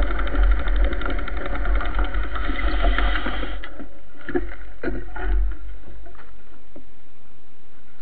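Mountain bike rolling over a gravel dirt road, with rattling, small ticks and low wind rumble on the microphone. It comes to a stop about three and a half seconds in, leaving a quieter hiss with a few scattered clicks.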